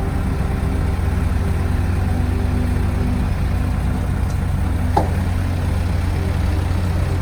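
Diesel engine of a Doosan excavator running steadily, with one short clank about five seconds in.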